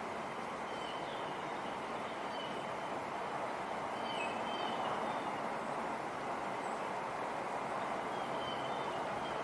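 Steady wind rushing through trees, with a few faint, short bird chirps above it.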